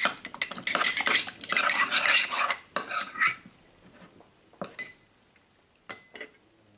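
Slime being mixed in a bowl: fast, dense clicking and scraping for about two and a half seconds, then a few separate clicks.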